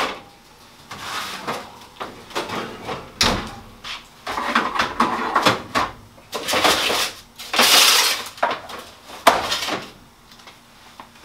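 Foil-covered baking pans handled and set down on a gas stovetop: aluminium foil crinkling in several bursts, with sharp knocks of the pans, the clearest about three seconds in and again near nine seconds.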